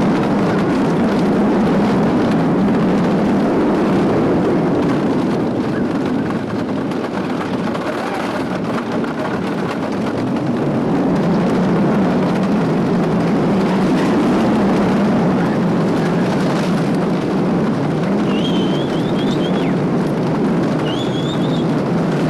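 Wooden roller coaster train running along its track, recorded from on board: a steady loud rumble with some clatter that dips slightly in the middle. A few short, high wavering squeals come near the end.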